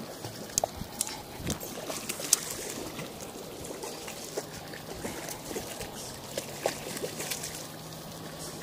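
Water splashing and dribbling as a hooked rainbow trout is played to the bank and thrashes at the surface, with a dozen or so sharp clicks scattered through.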